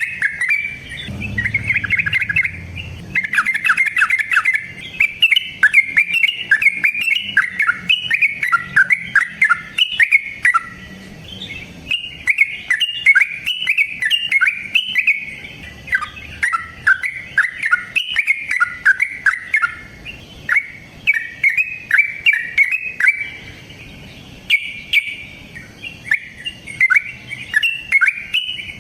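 Yellow-vented bulbul (trucukan) singing a long, rapid run of bubbly chirping phrases, broken by a few short pauses.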